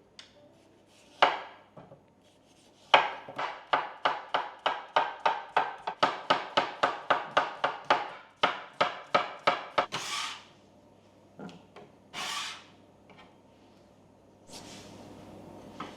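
A rapid, even run of sharp wooden strokes, about four a second, lasting several seconds, with a few single knocks or scrapes before and after it.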